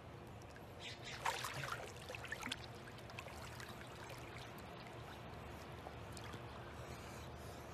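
Pool water splashing and lapping around a swimming cat: a short patch of splashes about a second in, then faint steady lapping.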